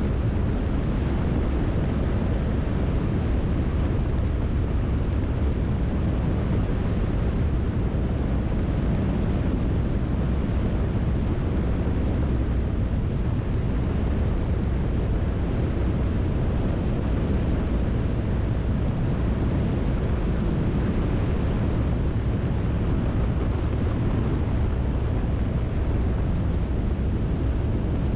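Steady in-flight noise of a light floatplane in cruise: the engine and propeller drone mixed with heavy wind rush on a microphone mounted outside on the airframe.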